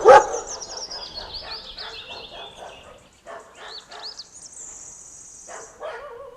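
Dog barking, loudest right at the start, then quieter, repeated high-pitched whines and yelps.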